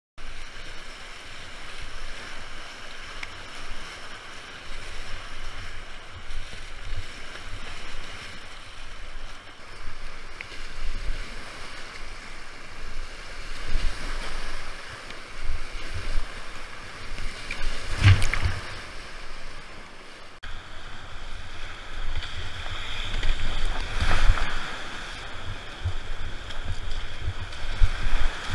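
Whitewater rapids rushing close around a kayak, with wind on the microphone and a few sharp knocks, the strongest about two-thirds of the way through. The rushing changes character abruptly just after that knock.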